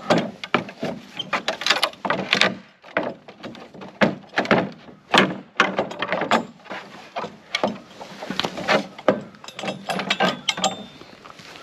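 Pallet buster prying a wooden board off a pallet: a quick run of cracks, creaks and knocks as the board and its nails work loose.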